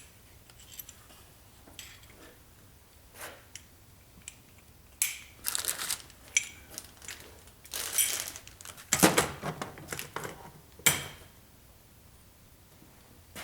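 Metal engine parts clinking and rattling as timing chain tensioner slides are handled and fitted on a 4.7 V8, in several bursts of clicks, the loudest about nine seconds in.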